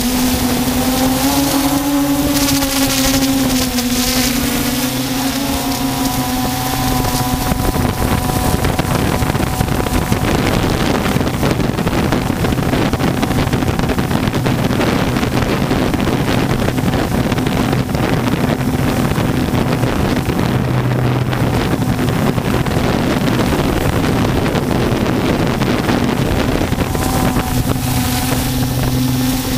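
Multirotor drone's motors whining steadily, heard through its onboard camera, with the pitch wavering slightly. From about seven seconds in until near the end, a loud rushing noise covers the whine.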